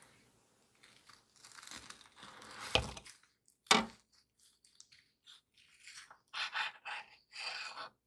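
Large kitchen knife cutting through the crusty baked top of an apple cake: crunching and tearing in irregular bursts, with a sharp knock, the loudest sound, just under four seconds in.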